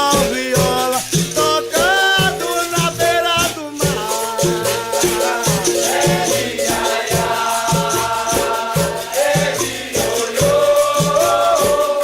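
Capoeira music: voices singing over a steady drum beat, with rattling percussion throughout.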